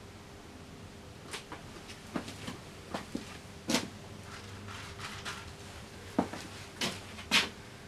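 Irregular small knocks, clicks and short scrapes of a palette knife working thick oil paint on a stretched canvas and picking paint up from the palette. The sharpest knocks come a little after 6 s and near the end.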